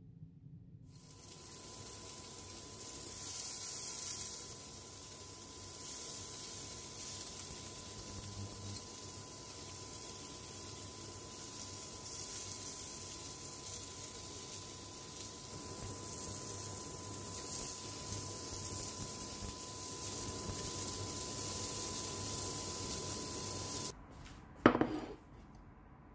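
Halloumi and plantain skewers sizzling in a stainless steel frying pan, a steady hiss with a faint steady high tone underneath. Near the end the sizzling cuts off suddenly, followed by one short, sharp, louder sound with a quickly falling pitch.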